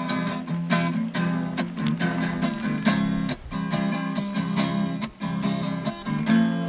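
Song accompaniment: an acoustic guitar strumming chords in a steady rhythm, with no voice between sung lines.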